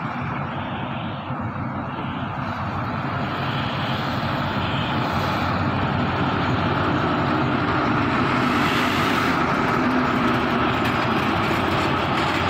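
Engine of an Alsthom AD24C diesel-electric locomotive running as the train pulls in and the locomotive passes close by, a steady drone that grows louder over the first several seconds and then holds.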